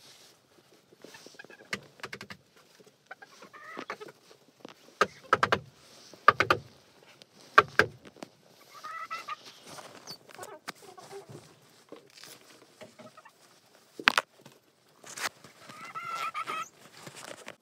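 Hens clucking and squawking at close range, on and off throughout, loudest near the end. Several sharp thumps come in the middle.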